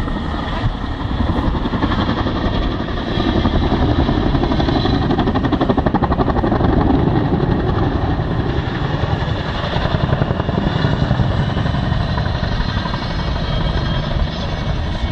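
Boeing CH-47 Chinook tandem-rotor helicopter flying a low display pass, its twin rotors beating in a loud, rapid, rhythmic thump over the turbine noise. The sound swells as it banks through a steep turn, loudest a few seconds in.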